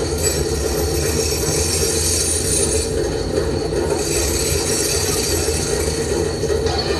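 Recorded industrial machine noise played through stage loudspeakers: a loud, steady wash of mechanical noise with thin, steady high-pitched whines over it.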